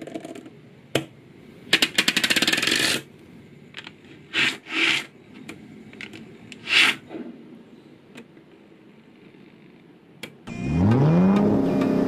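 Small magnetic metal balls click rapidly against one another as a strand of them snaps into place. A few short swishes follow. About ten seconds in, a recorded car engine starts revving, rising in pitch and then holding.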